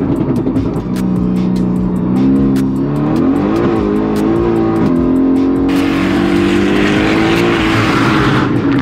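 Mercedes-AMG GT R's twin-turbo V8 running hard on track, its pitch rising and falling as it revs through the gears, over background music with a quick steady beat. A loud rushing noise joins about six seconds in and lasts until near the end.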